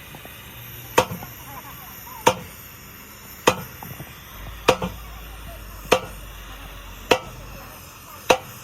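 Hammer striking metal seven times at a steady pace, about one blow every second and a bit, each blow ringing briefly.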